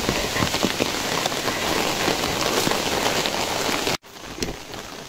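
Heavy rain falling steadily, a dense hiss with the patter of individual drops. About four seconds in it drops abruptly to a lighter, sparser patter.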